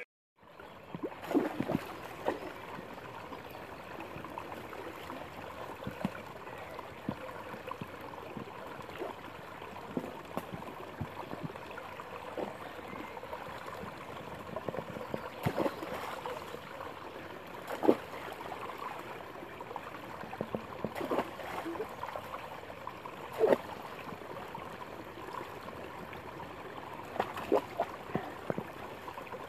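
Shallow creek water trickling and gurgling, broken by a dozen or so sudden splashes as a dog paws and stamps at the water.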